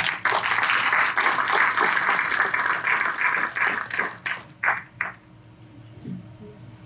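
Audience applauding, thinning out after about four seconds into a few last scattered claps.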